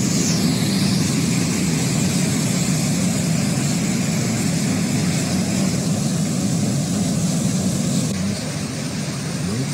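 Muddy flash floodwater rushing in a torrent: a loud, steady roar.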